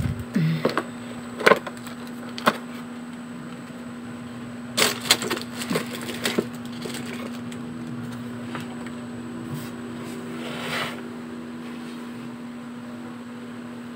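Small makeup items (plastic tubes, pencils, bottles) clicking and knocking as they are handled and set into a plastic makeup organizer, in scattered taps with a cluster about five to six seconds in and a short scrape near the end. A steady low hum runs underneath.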